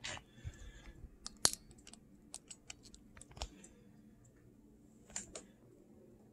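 Scattered light clicks and taps of handling noise as the camera is moved and repositioned, with one sharper click about one and a half seconds in.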